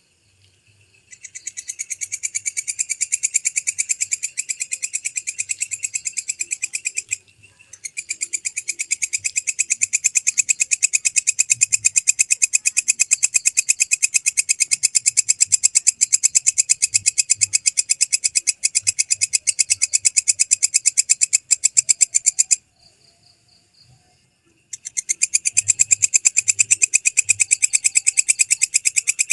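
Belalang kecek (walang kecek) katydid calling: long, fast trains of sharp, high-pitched pulses, breaking off briefly about seven seconds in and for a couple of seconds near the end before starting again.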